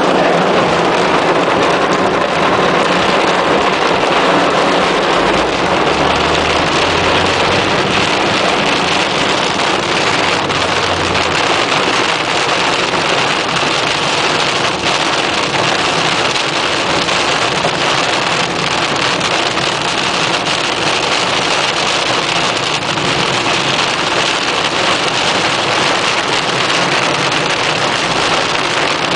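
Heavy thunderstorm rain on a car, a steady dense hiss. A low rumble comes in about five seconds in and stops around eleven seconds.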